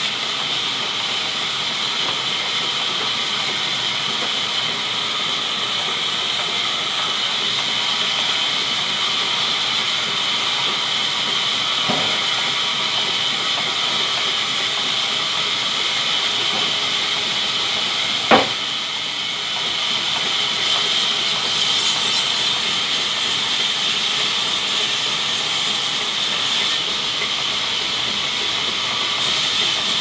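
Large belt-driven sawmill band saw running with a steady high hiss while a slab of banyan wood is fed through it, with one sharp knock a little past halfway.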